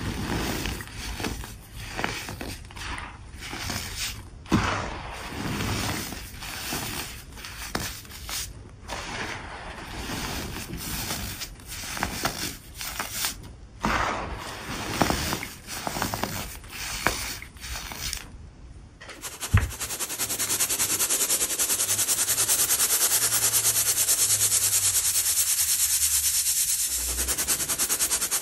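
Gritty powder worked by hand, slowed down, giving irregular crunches and crumbling rustles. About twenty seconds in, after a click, it changes to the steady, dense hiss of white baking soda being sifted.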